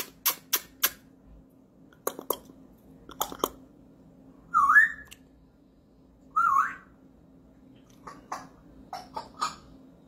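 African grey parrot giving two short, wavering whistles a couple of seconds apart. Before them come sharp clicks, and after them a few soft short chirps.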